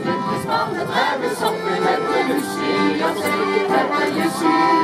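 A group of men and women singing a song together in unison, accompanied by a strummed acoustic guitar and an accordion.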